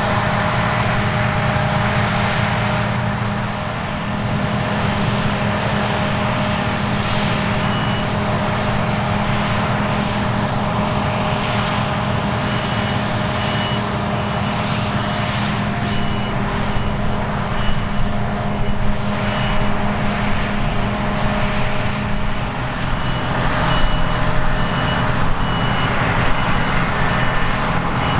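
Heavy diesel harvest machinery running steadily at working load. From about halfway through, a warning beeper sounds over it in short, regular beeps.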